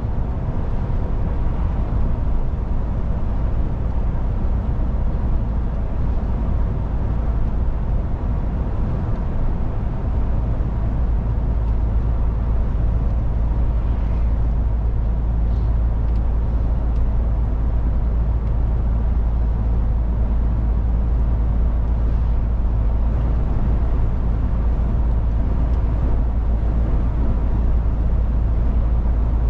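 MAN truck on the move at steady speed: an even, low drone of diesel engine and road noise that stays constant throughout.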